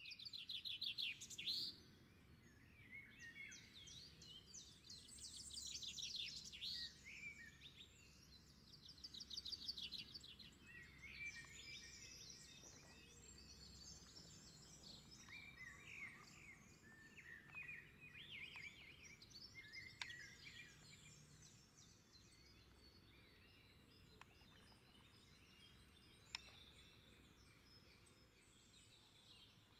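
Small songbirds chirping and singing, several calls overlapping with fast trills, growing sparser after about twenty seconds, over a faint low outdoor hiss. A single sharp click near the end.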